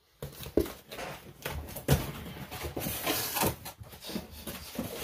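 A cardboard mailer box and its packaging being handled on a tabletop: a run of knocks, scuffs and paper rustles, with a longer scraping rustle around the middle.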